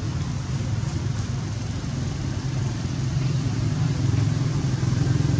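An engine running steadily with a low hum, growing gradually louder toward the end.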